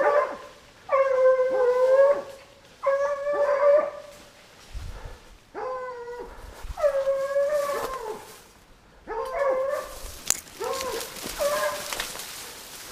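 Hunting dog baying: a run of long drawn calls, one every second or two, each sliding down and then held. It is the bay of a dog that has found game, which the hunter calls a big animal.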